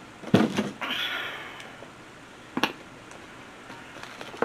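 Things being handled and set down: a loud knock about a third of a second in, a scraping rustle for about a second after it, then a sharp click a little past halfway and another at the end.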